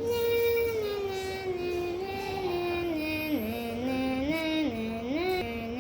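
A girl singing a wordless tune: one long note sliding slowly downward, then notes stepping up and down in a repeating sing-song pattern.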